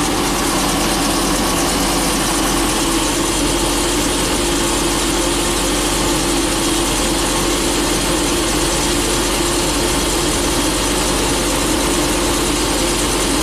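Ford 6.8-litre V10 in a 2012 E-Series bus idling steadily just after start-up. It is misfiring on cylinders 8 and 9, which the mechanic puts down to low compression in the newly installed engine.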